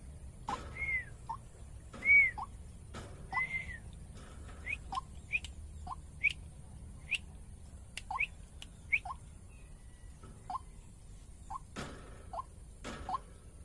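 White-breasted waterhen (ruak-ruak) calling: a long run of short notes alternating between a higher and a lower pitch, about two a second, becoming sparser and only low notes near the end. A few sharp knocks are mixed in.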